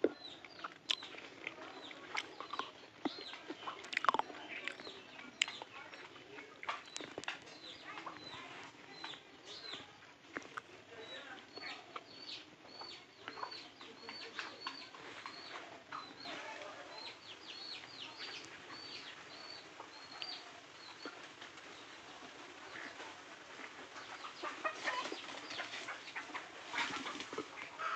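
Free-ranging chickens clucking, with scattered short ticks and rustles, a run of short high chirps repeating about twice a second through the middle, and busier calling near the end.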